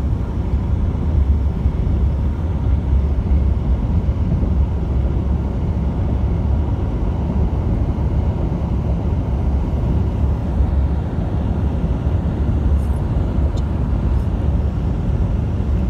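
Steady low rumble of road and wind noise from a car moving at highway speed.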